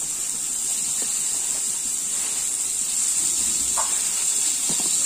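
Sliced onions frying in oil in a kadai, a steady sizzle, with a few light taps as chopped tomatoes are pushed off a steel plate into the pan.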